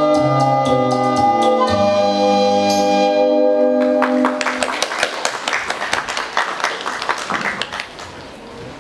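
Closing held chord of the song's accompaniment, which stops about four seconds in, followed by audience applause that fades away near the end.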